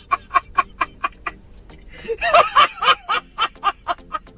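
A man laughing loudly in rapid, even "ha-ha-ha" pulses, about four a second, with a louder, longer outburst about halfway through.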